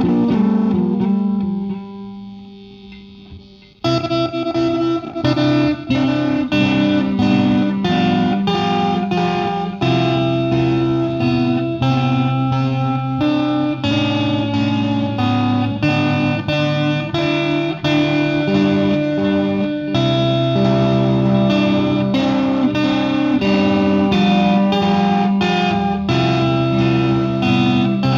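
Guitar music: a chord rings out and fades over the first few seconds, then strummed chords play in a steady rhythm, with a few brief dips in loudness. This is the stuttering, 'coughing' sound that the uploader asks about.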